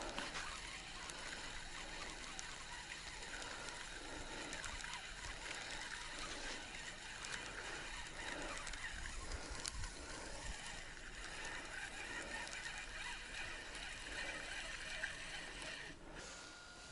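Water lapping and sloshing gently against a small boat's hull, in soft irregular swells over a quiet hiss. A thin steady high tone comes in near the end.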